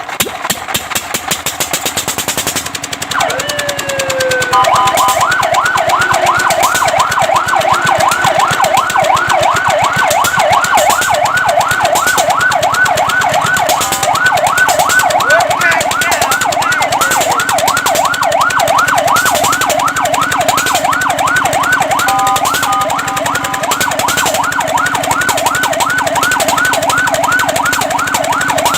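Fire truck's electronic siren: a falling sweep a few seconds in, then a fast yelp rising and falling about five times a second, interrupted once by a short steady tone about two-thirds of the way through. An engine runs underneath with a steady hum.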